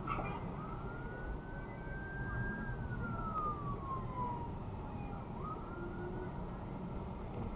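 Police car siren wailing: one slow rise and long fall in pitch, then starting to rise again about two-thirds of the way through, over the low rumble of traffic at the intersection.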